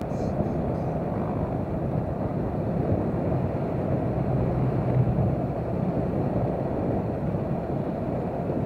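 Steady ride noise from a moving motorcycle: wind rushing over the microphone mixed with engine and road noise, even throughout.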